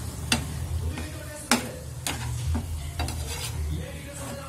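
Masala-coated chicken pieces sizzling in a metal pan while a metal spoon stirs them, with sharp clinks and scrapes of the spoon against the pan at irregular moments, the loudest about a second and a half in.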